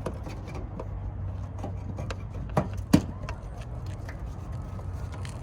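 Small clicks and taps of hand tools and metal hardware on a car bumper as a quick-release bumper fastener is worked on, with two sharper clicks about two and a half and three seconds in, over a steady low hum.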